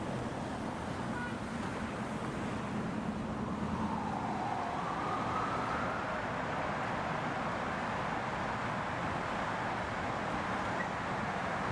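City street traffic: a steady wash of passing cars, with a brief gliding whine about four seconds in.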